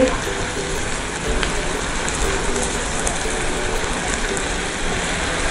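Sliced green chillies and leaves sizzling steadily in a frying pan with a little water and salt, stirred with a silicone spatula.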